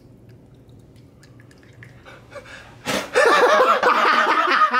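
A person laughing loudly, starting about three seconds in after a quiet stretch of room noise.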